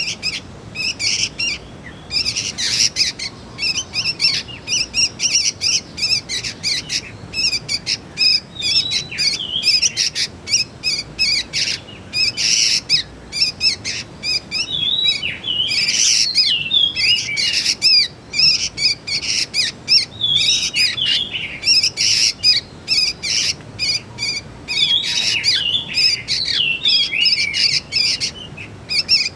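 Young sooty-headed bulbuls calling: a constant stream of short, high chirps and bent notes, many a second and overlapping, without pause.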